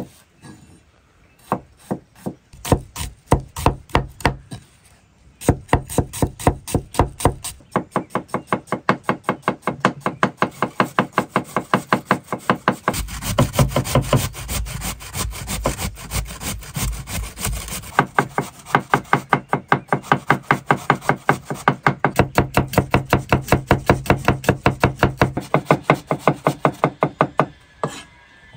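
Kitchen knife chopping an onion on a wooden cutting board: a few separate cuts at first, then quick, even chops, about four to five a second. Through the middle stretch a metal box grater rasps over a vegetable alongside the chopping.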